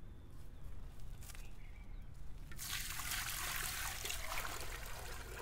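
Water poured from a clay pot into a large metal cooking pot, splashing onto the pot's bottom. The pour starts about halfway through and then runs steadily.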